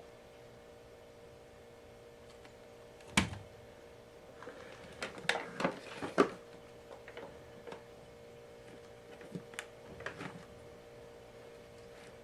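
A sharp knock, then a burst of clicks, knocks and rustling, then a few lighter taps: handling noise over a faint steady hum, with no vacuum motor running.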